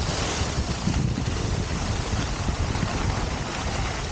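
Wind buffeting the microphone while moving downhill, with the steady hiss and scrape of sliding over groomed snow.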